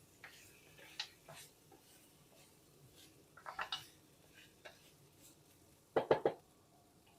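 A few light clinks and knocks of a utensil against a cooking pot on the stove, scattered through a quiet stretch. The loudest is a quick run of ringing strikes about six seconds in.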